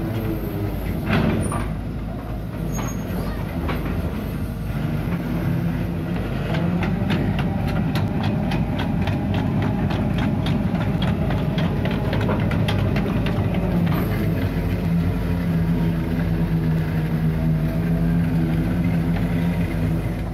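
Hitachi Zaxis 130 amphibious excavator's diesel engine running steadily as the machine crawls along on its pontoon tracks. Through the middle stretch the track chains clatter in a rapid, even run of clicks.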